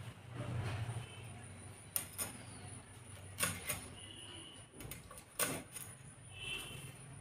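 Dried hilsa fish being cut into small pieces by hand: a few separate sharp cracks, about two seconds in, twice in quick succession a little later, and once more near the end, over a faint hum.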